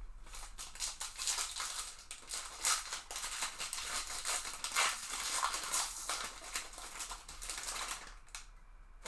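Plastic-foil trading-card pack wrapper crinkling as it is torn open, with cards rustling and clicking as they are handled. The dense, irregular crackle dies down about eight seconds in.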